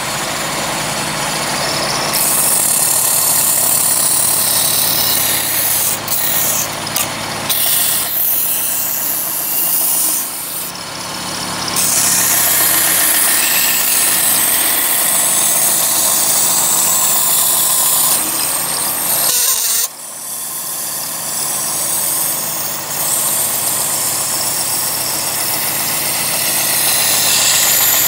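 A small 1/3 hp belt sander run off a 2000-watt inverter generator: a steady motor and belt hum, with a loud sanding hiss in long stretches and short breaks as a piece of plywood is pressed against the moving belt. An engine hum runs beneath.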